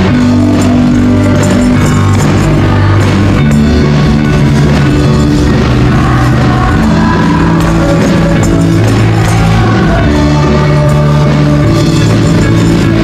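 Loud live praise-and-worship music with amplified singers over a band, with tambourines shaken along by dancers.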